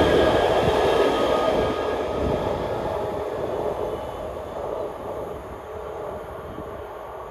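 Øresundståg electric multiple unit running past on the rails and pulling away. Its wheel-and-rail rumble is loud at first and fades steadily as the train recedes.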